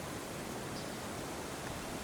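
Steady outdoor background noise, an even hiss with no distinct sound standing out.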